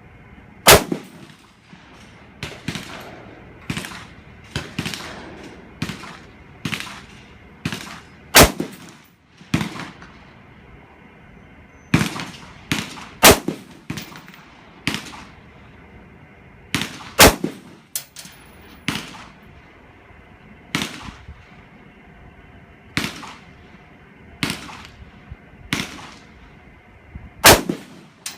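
AR-15 rifle fired semi-automatically: about twenty single shots at an uneven pace, often a second or less apart with a few longer pauses, some shots much louder than others.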